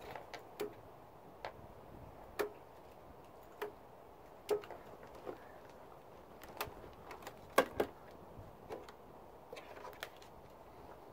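Scattered light clicks and taps of small hard objects, about a dozen at irregular intervals, with the two sharpest close together about three-quarters of the way through.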